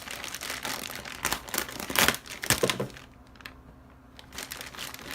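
Packaging crinkling and rustling as items are handled and lifted out of a box, with a louder crackle about two seconds in, then a brief lull before the rustling starts again.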